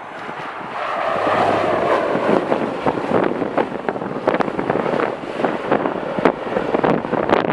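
Jet airliner engine noise that swells to a loud, rough roar about a second in, with heavy wind buffeting and crackling on the microphone.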